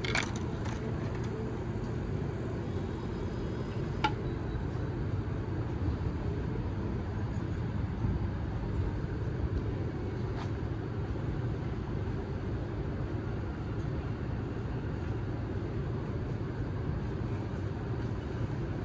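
A coin clinks into the orange juice vending machine's coin slot right at the start, followed by a single click about four seconds in, over a steady low rumble.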